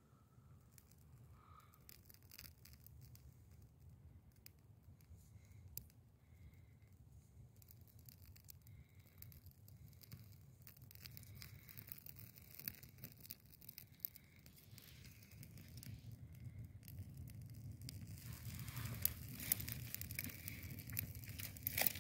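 Small kindling fire of birch bark and resinous fatwood catching and crackling faintly, with scattered small crackles that grow louder and more frequent in the last few seconds.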